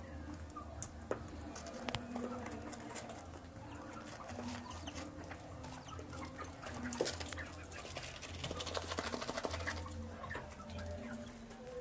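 Baby chicks pecking at their feed: many quick taps, busiest about seven to ten seconds in, with some soft peeping over a low steady hum.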